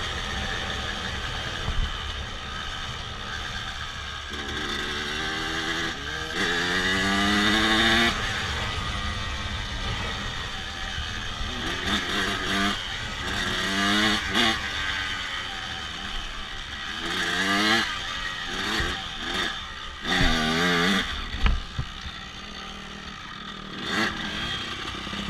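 Honda CRF250F's single-cylinder four-stroke engine running, with the throttle blipped several times so the revs rise and fall again, the longest rev about six seconds in. A sharp clack comes late on.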